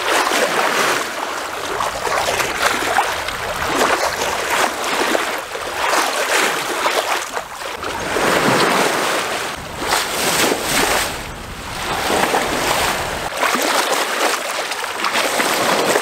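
Sea water rushing and splashing along a sailboat's hull as it sails through small waves, swelling and easing every few seconds.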